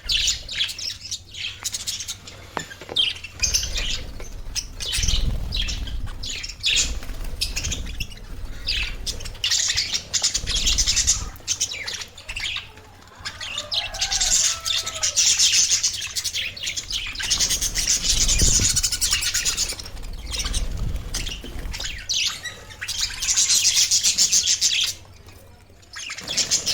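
Pet budgerigars chirping and chattering, a fast, continuous high warble of overlapping calls that briefly drops away near the end.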